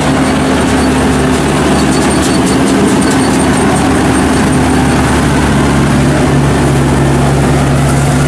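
Homemade tracked rice combine harvester running steadily as it drives off through the field, its engine note shifting slightly lower about five seconds in.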